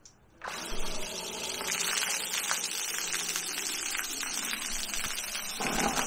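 Submersible utility pump switching on about half a second in and running, emptying a 5-gallon bucket. Its discharge hose sprays water high into the air, a loud steady rushing hiss over a low motor hum.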